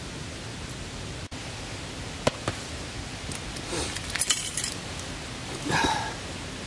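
Small objects handled on a mat: two sharp clicks, then a cluster of light clinks and a short clatter, as a smartphone is picked up and its charging cable pulled free, over a steady background hiss.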